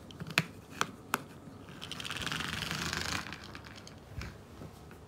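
Battery-powered toy mouse with its small motor whirring in a rapid buzz for about a second and a half, after a few sharp clicks. A dull thump follows about four seconds in.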